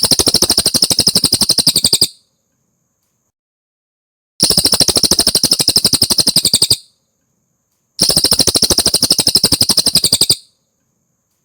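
Cililin (crested jay) giving its fast, dry rattling call three times, each rattle a run of rapid, evenly spaced clicks lasting about two and a half seconds, with short silent gaps between.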